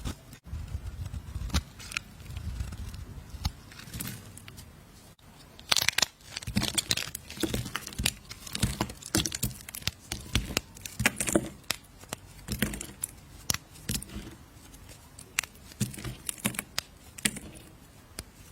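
A blade cutting and carving a bar of soap: an irregular run of short, crisp crackling cuts and scrapes.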